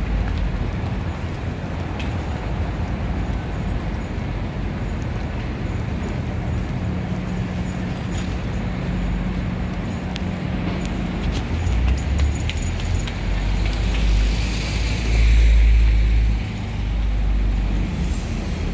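City street traffic: vehicle engines running and passing as a steady low rumble, swelling as a louder vehicle goes by near the end.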